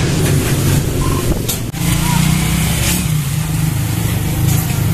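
A vehicle engine running steadily with a low hum, and a sharp clack about one and a half seconds in.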